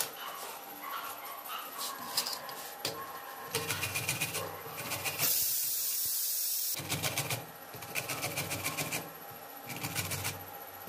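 Peeled raw mango rubbed against a stainless steel box grater in quick, rasping strokes, about five a second, in runs of a second or two. A loud, steady, high hiss lasts about a second and a half midway.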